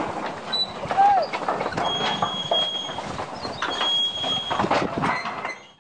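Empty steel sugar-cane wagons rolling slowly over temporary 700 mm field track, rattling and clanking continuously, with two thin high squeals in the middle and a short call about a second in. The sound cuts off suddenly near the end.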